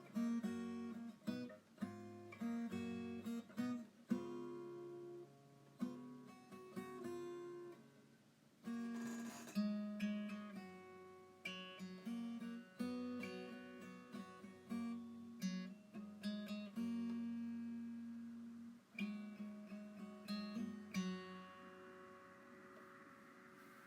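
Background music on acoustic guitar, plucked and strummed chords with notes ringing out, fading down near the end.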